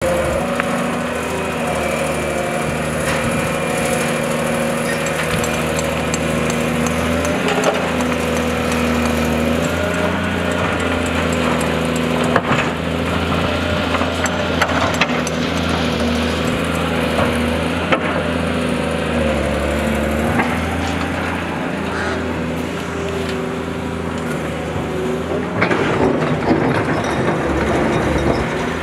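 Caterpillar tracked excavator's diesel engine running, its pitch rising and falling with the load as it digs and loads a dump truck. Occasional sharp knocks, with a busier run of clinks near the end.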